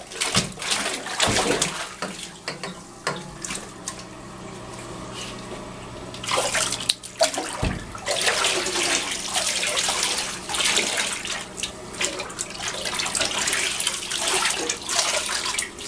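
Water running and splashing in a bath, louder from about six seconds in.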